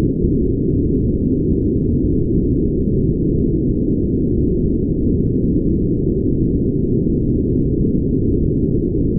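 Brown noise: a steady, deep, muffled rush with no high hiss.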